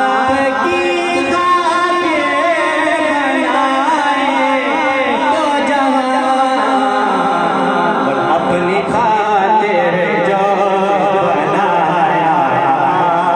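A man singing a naat, an Urdu devotional poem, into a handheld microphone, drawing out long wavering notes with many ornamental turns.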